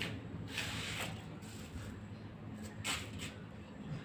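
Battery spot welder welding nickel strip onto a replacement lithium-ion cell: short sharp snaps of the weld pulses about half a second in and again near three seconds, over a low steady hum.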